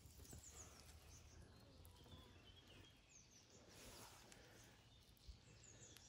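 Near silence: faint outdoor background with a few short, high bird chirps.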